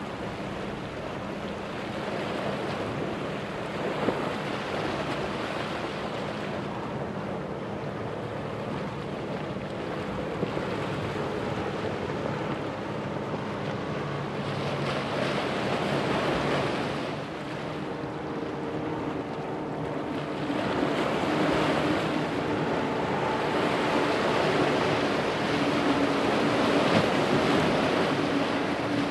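Outboard-powered boats running fast through rough inlet water: the rush and splash of spray and surf, with wind on the microphone. The steady hum of the outboard motors grows louder in the last third.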